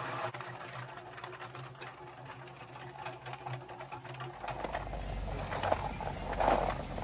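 Kadıoğlu CKS130D walnut hulling machine running with a steady motor hum, walnuts clicking and clattering against each other and the tray as they are sorted by hand. About four seconds in the hum gives way to a deeper drone, and a louder rattle of nuts comes near the end.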